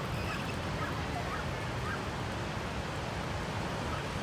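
Steady wind rumble on the microphone and surf wash, with a few faint short bird chirps over it.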